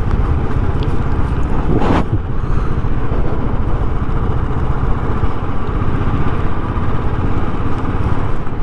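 Motorcycle engine running steadily under way, heard from the rider's seat, with wind rushing over a microphone that has lost its wind filter. A brief rising sweep comes about two seconds in.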